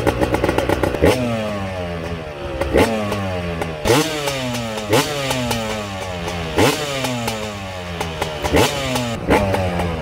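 Yamaha YZ250 single-cylinder two-stroke dirt bike engine running on its first start after a top-end rebuild, blipped about six times. Each rev rises sharply, then winds slowly back down toward idle.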